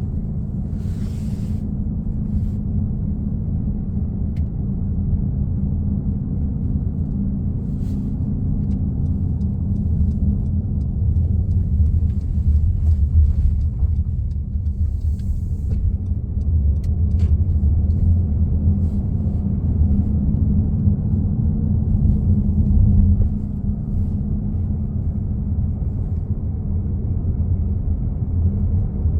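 Low, steady hum and rumble from a 2015 Honda CR-V Touring on the move: the loud humming noise coming from the back of the car. It swells for a while and drops back sharply about two-thirds of the way through.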